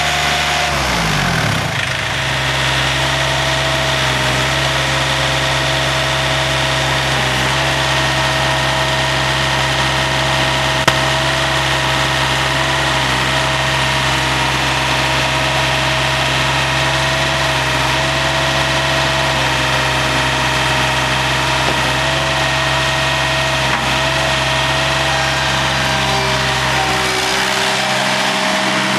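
Engine of a Boxer 732DT compact utility loader running steadily. Its speed drops about a second in and shifts again near the end, with one sharp click about midway.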